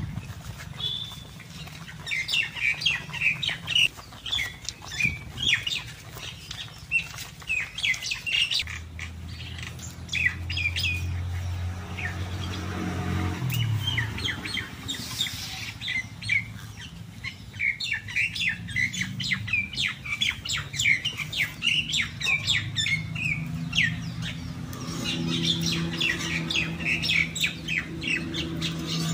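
Small birds chirping over and over, with occasional clicks and scrapes of a metal spoon against a steel wok as thick cooked jaggery is scraped out.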